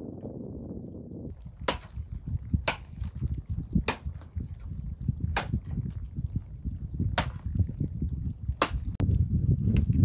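Machete strikes on wood: about seven sharp cracks at uneven spacing, roughly one every second or so, over a low rumbling background.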